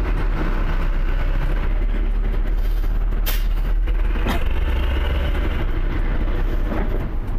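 Heavy diesel truck engines running in a slow-moving queue: a steady, loud, low rumble. Two brief sharp clicks come about three and four and a half seconds in.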